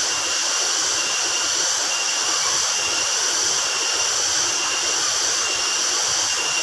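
Waterfall rushing: a steady, unbroken hiss of falling water, strongest in the high range.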